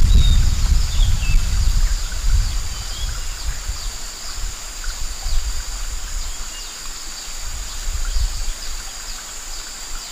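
Outdoor ambience: low wind rumble on the microphone, strongest at first and easing off, over a steady high insect drone, with a few faint bird chirps in the first couple of seconds.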